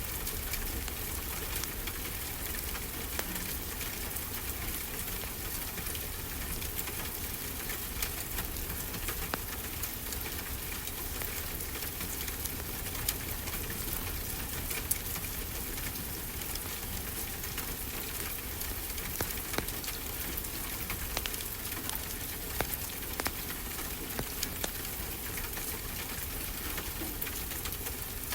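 Fireplace crackling, with scattered sharp pops and ticks, over a steady hiss of ocean surf.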